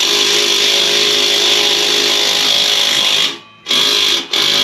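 Power impact wrench tightening exhaust clamp bolts: one steady run of about three seconds, then two short bursts as the bolt is snugged down.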